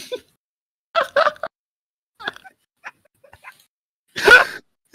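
A person's voice in short scattered snatches, with a louder vocal sound a little past four seconds in.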